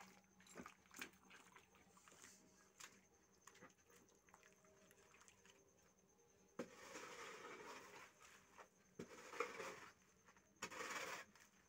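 Faint scraping and shuffling of bare feet pushing and pressing loose soil into a water-soaked foundation trench, so the wet soil settles down into the foundation. It comes in a few short stretches from about halfway through; before that there are only a few light clicks.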